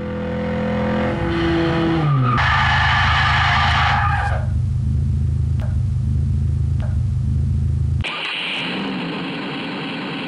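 Car sound effects: an engine whose pitch falls, then a tyre-skid screech over a steady low engine rumble that cuts off about eight seconds in, giving way to a steady hiss.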